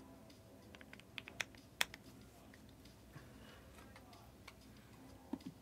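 Faint scattered clicks of typing on a computer keyboard: a quick cluster about a second in, then a few more spread through to the end.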